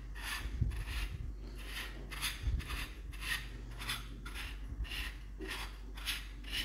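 A threaded black metal sleeve being unscrewed by hand from an RTI Prophet 2 air rifle's action block: repeated short rubbing, rasping strokes of the hand and threads, about three a second, as it is turned a little at a time.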